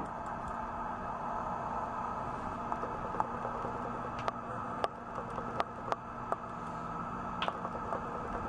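Computer mouse clicking: about seven short, sharp clicks spread over a few seconds while the program is opened, over a steady background hum.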